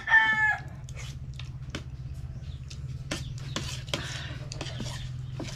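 The end of a rooster's crow, cut off about half a second in. Then small scattered clicks and smacks of eating from a spoon and plates, over a steady low hum.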